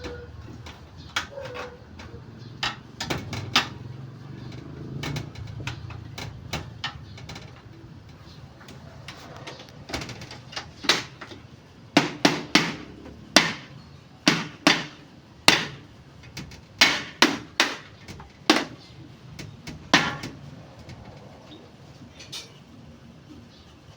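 Irregular series of sharp knocks, like hammer strikes: a few scattered at first, then coming quickly, one or two a second, through the second half, and dying away near the end.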